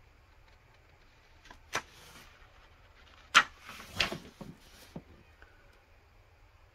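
Paper pages of an instruction booklet turned by hand: a sharp snap about two seconds in, a louder snap at about three and a half seconds followed by about a second of rustling paper, then a couple of light taps.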